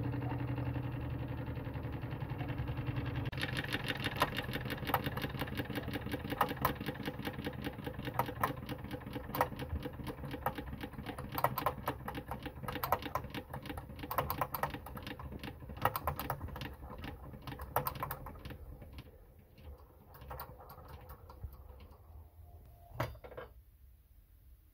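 Wilesco D16 model steam engine running down: a fast, even mechanical rattle turns into rapid irregular clicking that thins out, fades and stops. A single sharp knock comes near the end.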